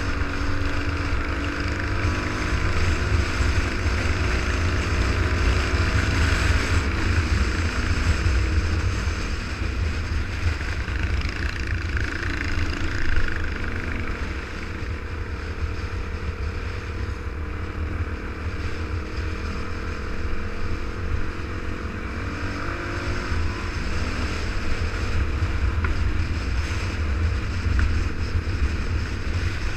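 Dirt bike engine running under way on a gravel road, its pitch rising and falling with the throttle, with heavy wind buffeting on the microphone.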